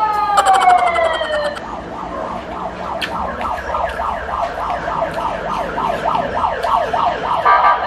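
Electronic siren of a passing emergency vehicle: a wail that rises and then slowly falls, switching after about two seconds to a rapid yelp of short repeated sweeps, then rising into another wail near the end.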